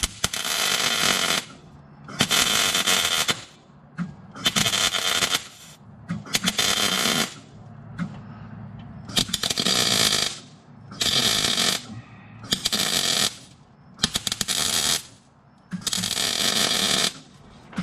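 MIG welder arc crackling in nine short bursts of about a second each. The sheet metal is being stitch-welded in pulses so it does not burn through.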